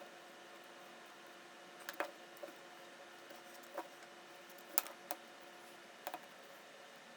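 Small steel parts of a ratchet head being worked with a pick, the detent ball pressed onto its spring while the pawl is fitted onto the lever shaft: about half a dozen light, irregular metal clicks and taps over a faint steady hum.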